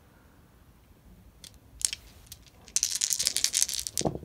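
A handful of dice clattering as they are rolled: a few sharp clicks, then a dense rattle for over a second near the end.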